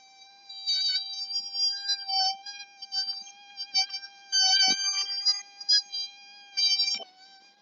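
Balloon deflating, air squealing out through its stretched neck: one steady high-pitched whine that swells louder and shriller in uneven spurts.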